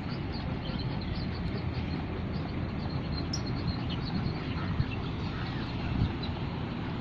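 Wind buffeting the microphone in an uneven low rumble, with a thump about six seconds in. Faint bird calls chirp here and there above it.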